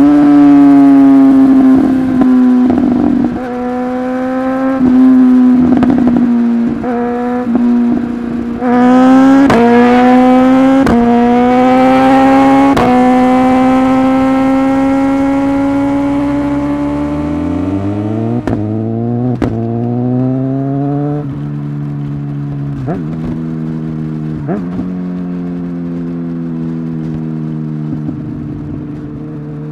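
Suzuki GSX-S1000 inline-four sport bike engine pulling through the gears with a quickshifter. The engine note climbs and is cut by a sharp pop at each clutchless upshift, with a quick run of shifts about nine to thirteen seconds in. Later it settles to a lower, steadier cruising note with a few more pops.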